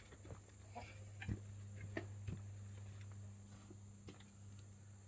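Chickens clucking faintly, with a few short knocks and a steady low hum underneath.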